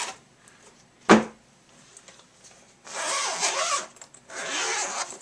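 Packaging being handled and opened: one sharp knock about a second in, then two scraping, rustling bursts of about a second each, one near the middle and one near the end.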